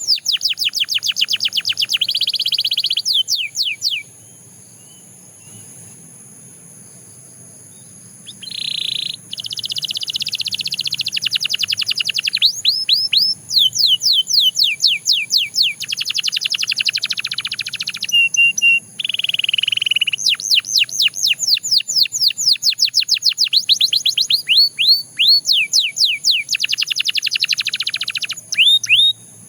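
Canary singing in long rolling phrases of very fast trills and rapid downward-sweeping notes, with a pause of about four seconds a few seconds in. A steady high-pitched tone sounds behind the song throughout.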